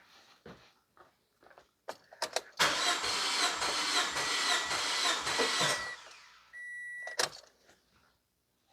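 Starter motor cranking the 2005 Toyota Corolla's 1.8-litre four-cylinder engine with the spark plugs out, for about three seconds with an even rhythmic pulse, while the compression gauge on cylinder 2 builds its reading. A few clicks come just before the cranking, and a short steady beep and a click follow near the end.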